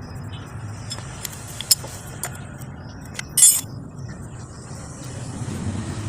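Metal tools and small engine parts clinking during hand work on a motorcycle engine: a few sharp clicks, then a brief metallic jingle about three and a half seconds in, the loudest sound, over a low steady rumble.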